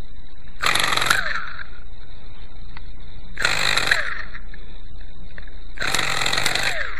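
Quickie 18 RC helicopter's glow engine being cranked in three short bursts of about a second each, sputtering and winding down in pitch without catching: hard starting, the engine tries to fire but won't keep running. A steady high thin whine sounds underneath.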